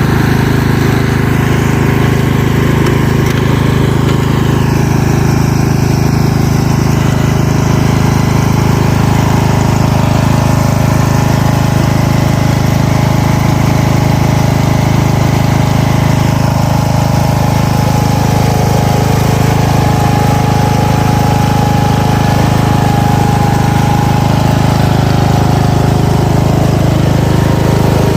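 Small engine running steadily at a constant speed, with a deep even hum.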